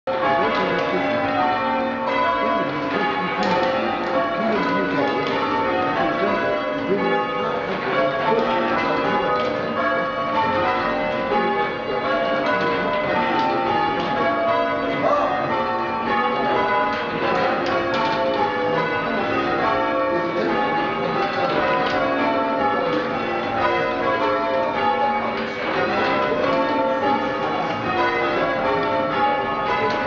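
Church bells rung full-circle by a band pulling ropes in change ringing, heard from the ringing chamber below the bells: a continuous, even stream of overlapping bell strokes in shifting order.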